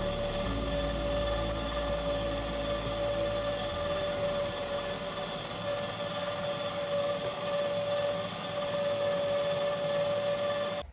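Minimix 130 electric cement mixer running, its drum turning with a steady motor hum and a steady whine.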